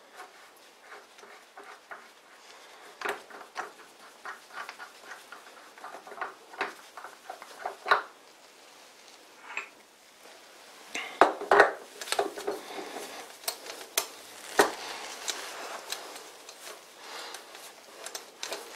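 Metal-on-metal clinks, knocks and scrapes as chucks are handled on a lathe's threaded spindle nose: a drill chuck taken off and a larger chuck screwed on by hand. The clicks come scattered throughout, with the loudest cluster a little past halfway.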